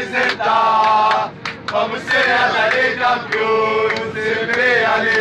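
A crowd of male football supporters chanting a terrace song in unison, long held notes in the close, boxy acoustics of an airliner cabin, with a few sharp hits between the phrases.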